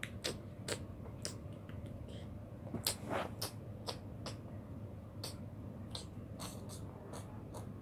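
Small paper model pieces being folded and pressed between the fingers close to the microphone: a run of sharp crinkles and clicks, irregularly spaced.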